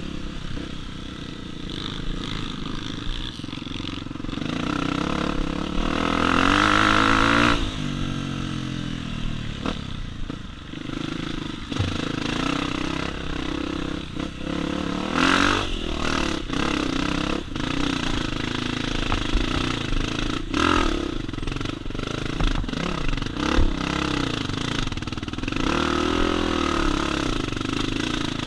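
Honda CRF250F dirt bike's single-cylinder four-stroke engine riding on a trail, revving up and down with the throttle, with scattered knocks and clatter. A hard rev rises in pitch about seven seconds in and another comes near the end.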